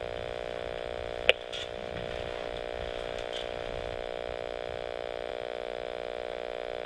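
A steady hum of several even tones, with one sharp click about a second in.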